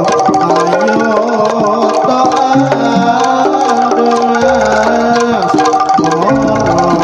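Loud Javanese jaranan gamelan music, with kendang hand drums driving the rhythm under pitched gongs and metallophones and a wavering melody line.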